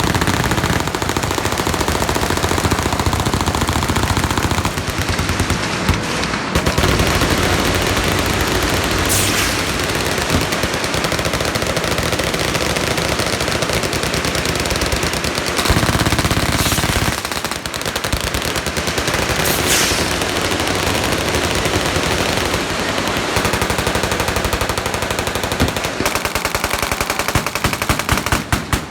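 Many machine guns firing at once on a range firing line: dense, overlapping automatic fire with no break.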